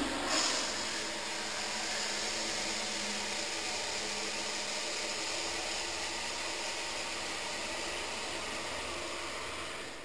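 Commercial flushometer toilet flushing: a loud, steady rush of water that starts abruptly and fades near the end. The bowl is clogged with toilet paper, so it fills instead of draining.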